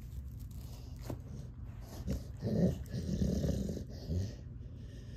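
A bully-breed dog lying on its back gives low, rough growling grumbles in three short bouts, about two, three and four seconds in.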